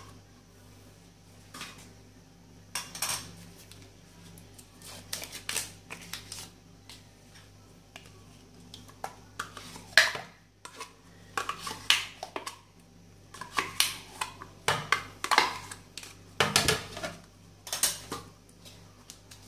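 Yogurt being scraped and tapped out of plastic cups into a plastic blender jug: a string of short, irregular clicks and scrapes, the sharpest about halfway through.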